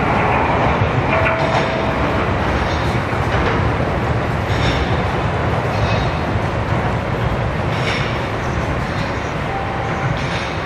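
Train running away along the track, a steady rumble slowly fading as it recedes.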